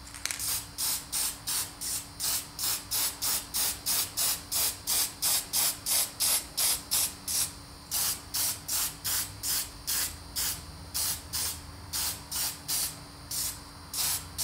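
Aerosol spray can of Dullcote clear flat lacquer hissing in short, rapid bursts, about three a second, with a couple of brief pauses. The bursts lay a flat clear coat over weathered model roof pieces.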